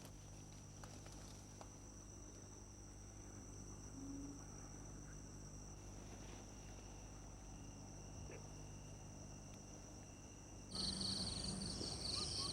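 Faint, steady chirring of crickets and other insects in countryside, with a low background hum. Near the end the insect chorus jumps suddenly louder and higher.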